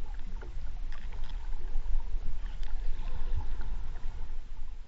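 Muffled underwater water noise heard through an action camera's housing just below the surface: a steady low rumble with an even hiss and scattered small clicks and splashes, fading out near the end.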